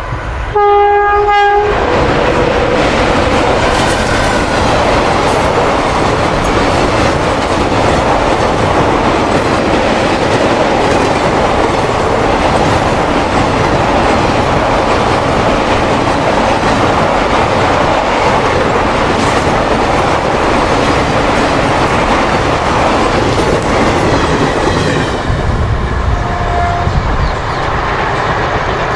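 WAP-4 electric locomotive sounding one short horn blast about a second in, then a passenger train rushing past at speed over a girder bridge: a continuous loud rumble and clatter of wheels that eases slightly near the end as the last coach draws away.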